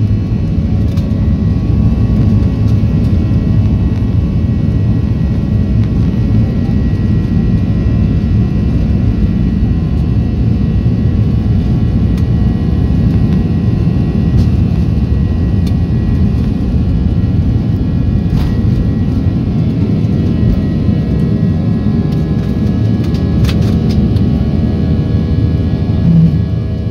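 Boeing 737-800's CFM56-7B turbofan engines at takeoff thrust, heard inside the cabin over the wing: a steady loud roar with droning fan tones. The rumble of the wheels on the runway lasts until liftoff partway through, and a brief thump comes near the end.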